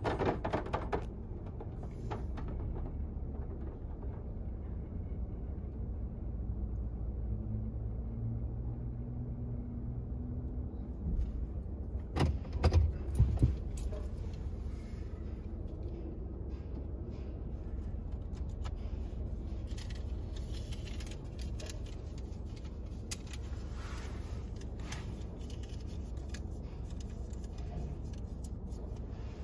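Tandem ProTouch car wash working over a car, heard from inside the cabin: a steady wash of water spray and cloth brushes on the body and glass over a low rumble. A faint low hum comes in a few seconds in, and a cluster of loud knocks sounds about twelve seconds in.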